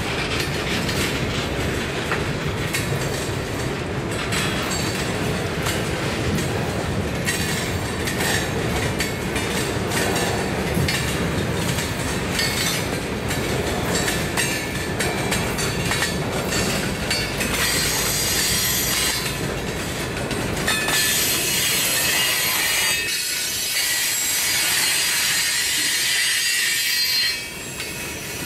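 Freight train boxcars rolling past close by: a steady rumble of wheels on rail with a stream of clicks from the wheels. About two-thirds of the way through, a high-pitched wheel squeal comes in and carries on to the end.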